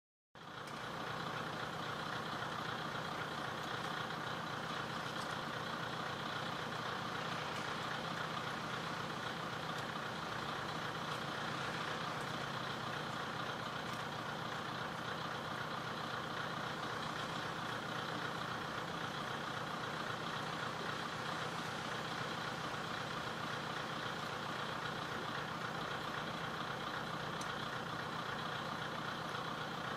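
KiHa 104 diesel railcar's DMH17B straight-eight diesel engine idling steadily with the car standing still.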